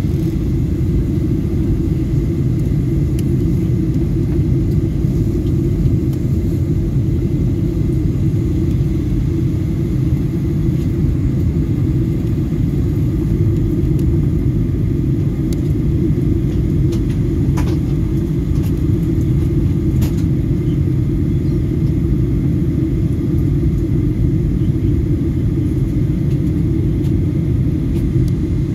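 Cabin noise inside a Boeing 737-800 airliner in flight: a steady, unbroken low rumble of the engines and rushing air.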